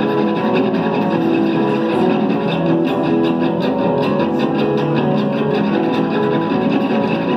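Live rock band playing, with electric guitar to the fore.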